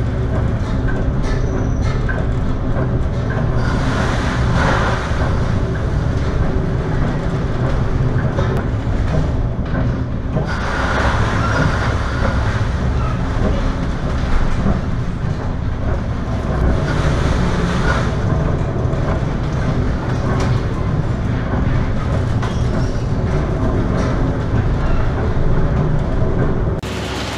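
A ship pounding through heavy storm seas: a loud, constant low rumble of wind and waves against the hull, swelling twice, about 4 and 11 seconds in.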